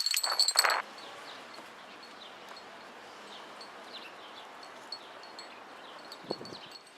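Quiet outdoor background with faint, scattered high bird chirps. A louder burst of high ringing notes stops under a second in.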